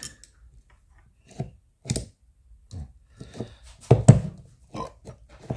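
Skoda Superb II hood latch being forced shut with a screwdriver: a string of separate metallic clicks and knocks from the latch mechanism, the loudest about four seconds in. The latch does not catch and hold.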